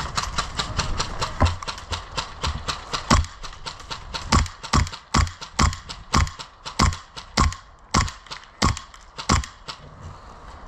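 Running footsteps picked up by a body-worn camera: a steady run of heavy thuds, about two to three a second, settling into an even rhythm a few seconds in.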